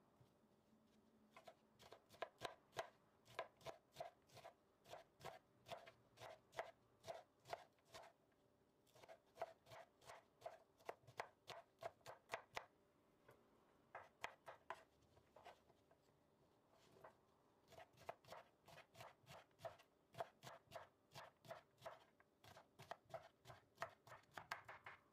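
Kitchen knife chopping fresh broad bean pods into thin rounds on a wooden cutting board: quick, even knocks of the blade on the board, about three to four a second, in runs with brief pauses.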